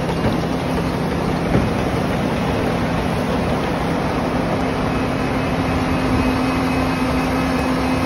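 A leek harvester and its tractor running while lifting leeks in a wet field: steady machinery noise over an engine hum, which rises a little in pitch about halfway through.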